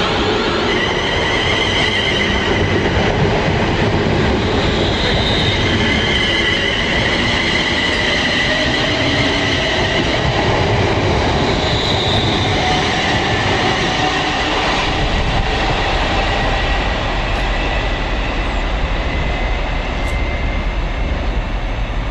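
Passenger train running on the rails, with a high wavering squeal over a steady rumble. The squeal fades a little over halfway through while the low rumble grows.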